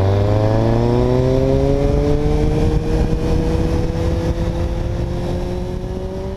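Triumph Speed Four's 599 cc inline-four engine pulling through a gear under steady throttle, its pitch rising slowly.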